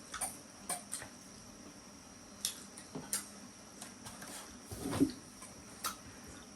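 Eating sounds: scattered light clicks and taps of cutlery on plates, a second or so apart, with one louder knock about five seconds in.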